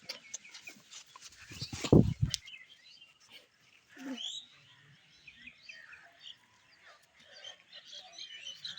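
Small birds chirping faintly and sporadically, the chirps thickening near the end. About two seconds in there is a loud, low, one-second rumble, and a short rising call a little after four seconds.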